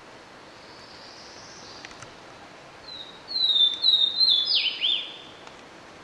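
A Swainson's warbler sings one song about three seconds in: a short run of loud, clear down-slurred whistles lasting about two seconds, the last notes dropping lower. A steady hiss runs underneath.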